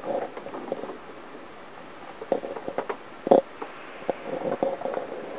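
Handling noise close to the microphone in a parked warbird's cockpit: rustling with scattered clicks and knocks, the loudest knock about three seconds in. The engine is not yet running.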